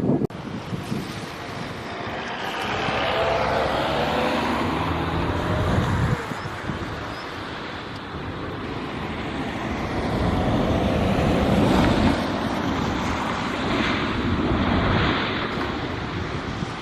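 Jet airliner engines passing, a loud rushing roar with a sweeping, phasing tone, under wind noise on the microphone. The sound changes abruptly about six seconds in, then builds again to a peak near twelve seconds.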